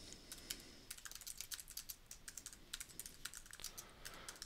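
Faint typing on a computer keyboard: quick, irregular runs of keystrokes with short pauses between words.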